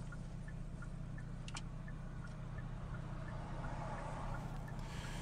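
Indicator flasher ticking inside a stopped car, about two to three clicks a second in an alternating tick-tock, over a steady low hum from the car.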